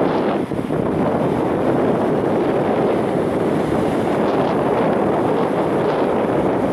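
Wind blowing across the microphone in a steady rush, with small waves washing onto the shore beneath it.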